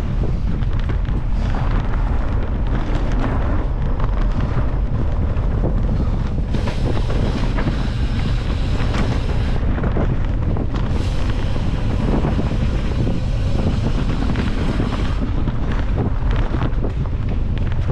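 Wind buffeting the microphone of a camera on a mountain bike ridden fast over dirt singletrack, with the bike rattling and knocking over the bumps. A brighter hiss comes in twice in the middle.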